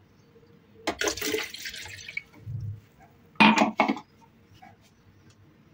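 Water poured from a glass into a plastic blender jug, a splashing pour lasting about a second, followed about three and a half seconds in by a louder, sharp clunk.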